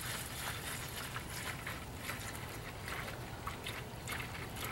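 Liquid concrete sealer being poured into a plastic pump sprayer's tank, a steady quiet trickle with a few brief splashes.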